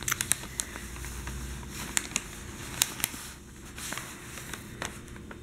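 Newspaper page being lifted and turned by hand, the newsprint crackling and crinkling in a scatter of sharp little clicks.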